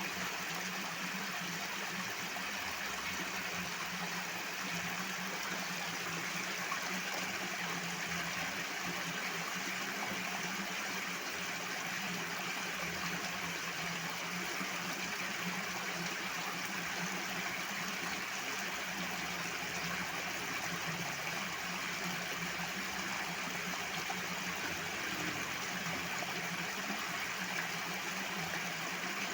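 Water rushing in a steady, continuous flow, an even rush with no breaks or changes.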